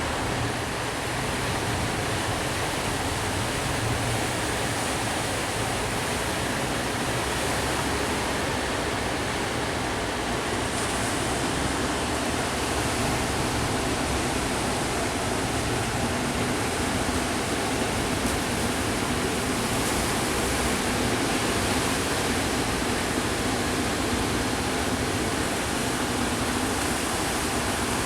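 Steady roar of sea surf, a dense even rush with no breaks.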